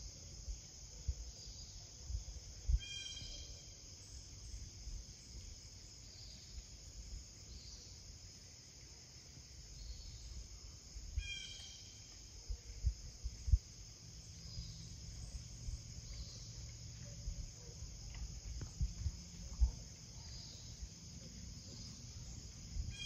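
Insects chirring steadily in a high, constant drone, with low bumps on the microphone and two brief calls about three and eleven seconds in.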